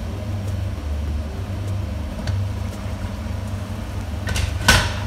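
Steady low rumble from the kitchen stove area, with a few faint ticks, under a covered pan of stew simmering on a gas hob. A bit over four seconds in, the glass pan lid is lifted off with a short, loud clatter.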